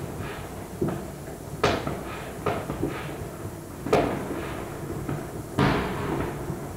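Muffled New Year's Eve firecracker and firework bangs, heard from indoors at irregular intervals, about six in all. The sharpest is about four seconds in, and a longer, echoing boom comes near the end.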